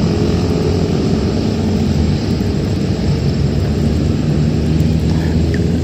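Steady drone of engine traffic on a road bridge: an even rumbling hum with no break.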